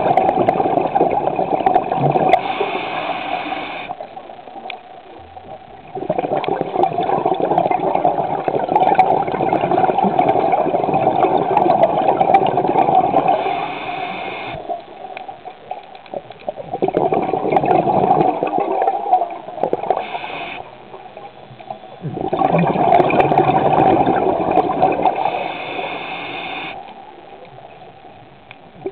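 Muffled churning and rushing of water around a camera held underwater, loud for stretches of several seconds with quieter dips between.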